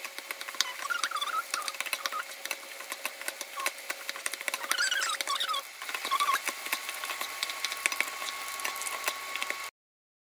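Wooden spatula and plastic rice paddle scraping and clicking against a nonstick frying pan as garlic fried rice with egg is tossed, over a light sizzle, with a few short squeaks and a faint steady tone. The sound cuts off suddenly near the end.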